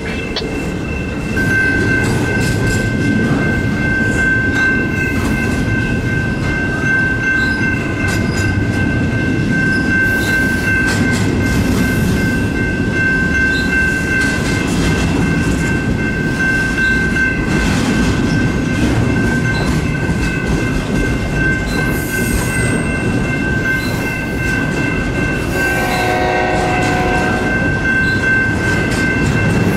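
Double-stack intermodal container train rolling past on well cars, a steady rumble of wheels on the rails. About a second and a half in, a steady high-pitched squeal sets in and holds.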